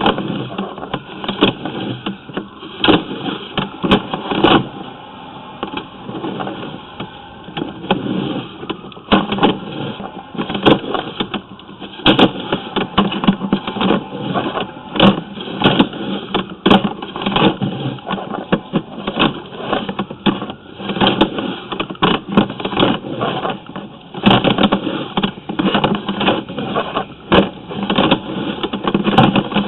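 Sewer inspection camera's push cable being pulled back out of the pipe and fed onto its reel, with a steady run of irregular knocks and rattles.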